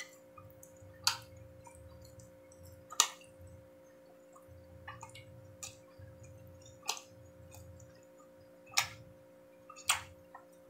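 Close-up mukbang eating sounds of a person chewing pork barbecue: soft low chewing with half a dozen sharp mouth or cutlery clicks spaced irregularly, over a faint steady hum.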